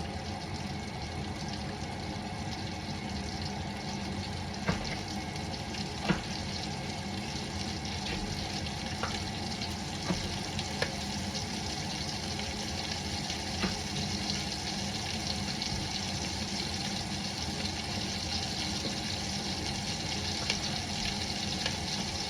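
Diced onion sizzling steadily in hot oil in a Dutch oven, cooking until transparent, with a few light knocks in between.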